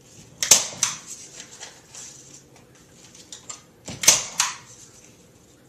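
Staple gun firing staples through paper into a bulletin board: two pairs of sharp snaps, one pair about half a second in and the other about four seconds in.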